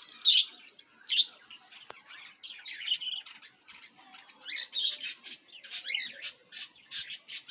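Caged budgerigars chattering: a dense run of short chirps, warbles and squawks from several birds at once.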